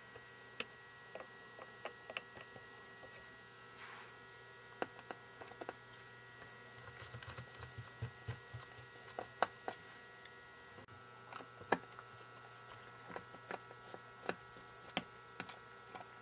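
Small Phillips screwdriver backing out the screws of a laptop's screen hinge brackets: scattered faint clicks and ticks, busiest about halfway through, over a steady low electrical hum.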